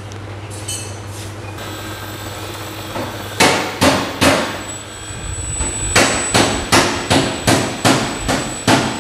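Repeated hammer blows, each sharp with a short ring: three spaced strikes about three seconds in, then a steady run of about three blows a second from about six seconds on, over a low steady hum.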